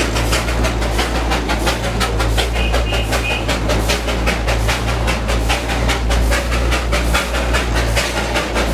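Darjeeling Himalayan Railway steam train, hauled by a 0-4-0 saddle-tank locomotive, running and heard from aboard: a rapid, even beat of about four a second over a low rumble. A short high tone comes in about two and a half seconds in.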